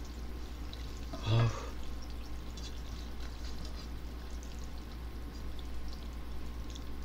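Faint liquid and clinking sounds of ramen noodles and soup being stirred and lifted with chopsticks and a wooden spoon in a metal pot, over a steady low hum. About a second in there is one short vocal sound from the eater.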